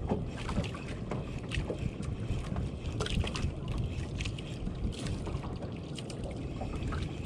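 Wind buffeting the microphone and water sloshing around a small boat, a steady low rumble, with irregular light clicks and knocks scattered through it.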